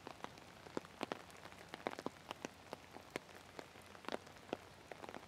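Light rain falling, with individual raindrops striking irregularly, several a second, over a soft steady patter.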